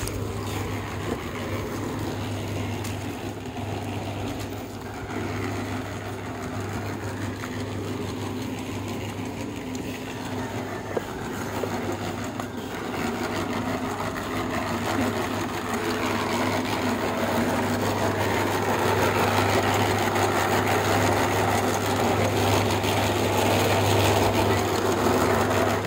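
Portable drum concrete mixer running steadily, its motor giving a constant low hum, getting louder about halfway through.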